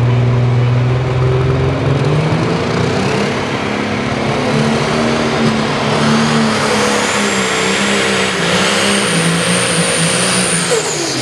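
Heavily modified turbocharged pulling tractor engine running hard under full load as it drags the weight sled. Its pitch wavers through the pull, and a high turbo whine climbs steadily from about three seconds in, then drops away near the end.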